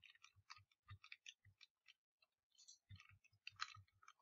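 Faint, rapid clicking from computer input, about five clicks a second, with a pause of about a second in the middle.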